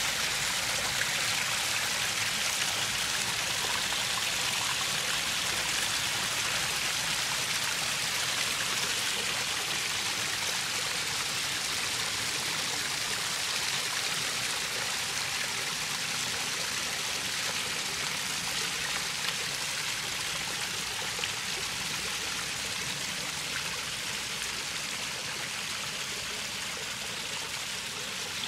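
Small backyard pond waterfall spilling over stacked stones into the pond: a steady, continuous rush of splashing water that grows slightly quieter toward the end.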